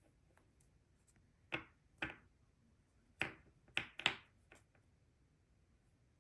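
Five short, sharp taps made by hands at a table: two about half a second apart, then three more, the last two close together around four seconds in.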